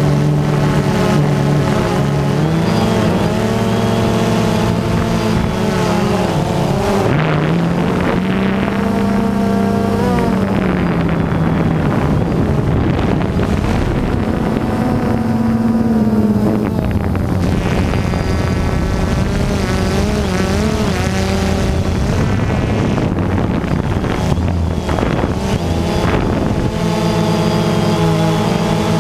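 DJI Phantom quadcopter's motors and propellers whining, heard from the camera on the drone itself, the pitch of the whine rising and falling as the motors speed up and slow down to steer. Wind rushes over the microphone along with it.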